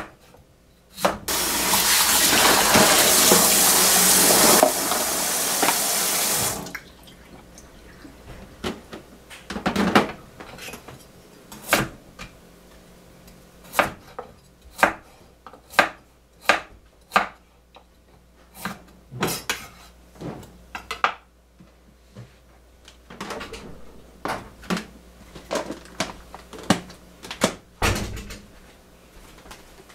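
A kitchen tap runs for about five seconds, then a square-bladed vegetable knife chops sweet potato and carrot on a wooden cutting board in uneven single strokes, with a low thump near the end.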